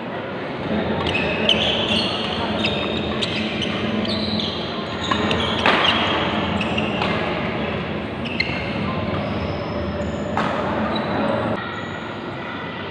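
Badminton doubles rally: sharp racket strikes on the shuttlecock come about once a second, with short shoe squeaks on the court mat between them. The strikes stop about ten seconds in as the point ends.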